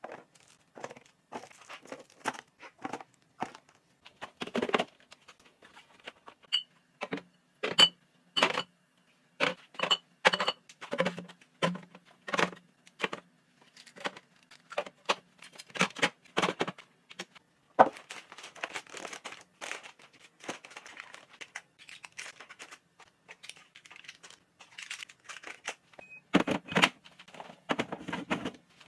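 Household items being handled and set down: irregular clacks and knocks, with crinkling and rustling of packaging or plastic.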